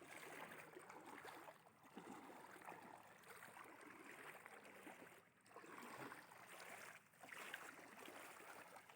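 Faint rushing of flowing floodwater, swelling and easing, with a few brief lulls.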